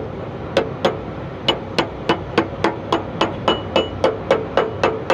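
Hammer blows on ringing steel in a quick, steady rhythm of about three to four strikes a second, with a brief pause near the start. The part is being driven into place while a bulldozer's gear and seal are fitted.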